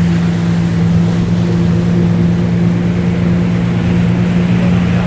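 Wake boat's inboard engine running steadily at surf speed, a constant even drone, with a rush of wind and water noise over it.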